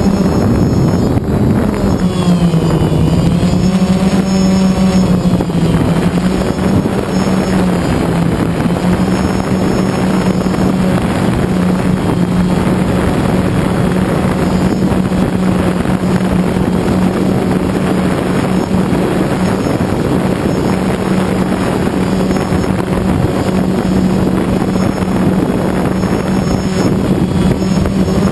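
Multirotor drone's motors and propellers buzzing steadily in flight, the pitch dipping briefly about two to three seconds in, with wind rushing over the microphone.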